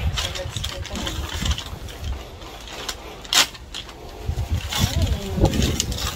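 Brown paper bag rustling and crinkling as a potted plant is lifted out of it, with one sharp crackle a little past halfway, over a steady low rumble.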